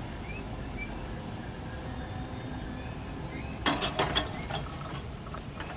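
Railroad crossing gate arms rising after a train, with a short burst of clattering clanks about two-thirds of the way in as the arms reach the upright stop, over a steady low rumble.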